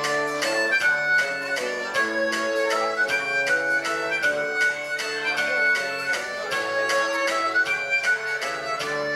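Live band playing an up-tempo tune: amplified harmonica, cupped to a microphone, carries the melody over electric guitars, with a steady beat throughout.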